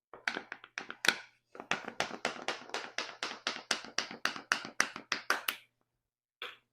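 A spice bottle of cayenne pepper being shaken and tapped over a container of flour, giving sharp taps: a few at first, then a steady run of about five a second lasting some four seconds, and one last tap near the end.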